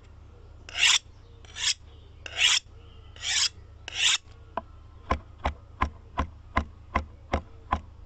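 Five rasping scrapes, each under half a second and a little under a second apart, followed about halfway through by a steady run of sharp clicks, roughly three a second.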